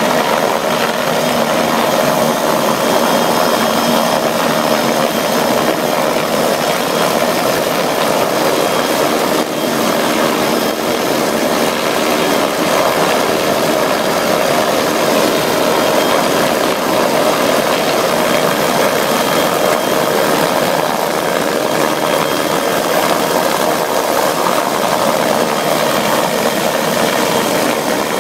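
Helicopter hovering low overhead: steady, loud turbine whine and rotor noise with no change in pitch.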